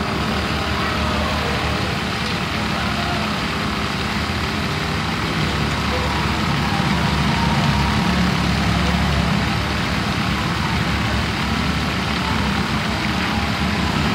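Small engines of bumper boats running steadily, an even engine noise with no revving, with the engine of a Honda-powered boat close by.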